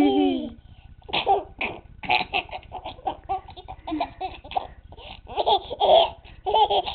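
A baby laughing: a string of short bursts of laughter, with a brief pause about a second in.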